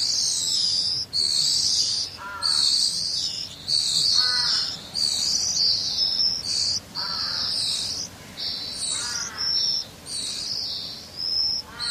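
Blue-and-white flycatcher nestlings begging at the nest: a near-continuous high, hissy chatter that comes in runs of about a second. A lower, short call repeats about every two seconds underneath.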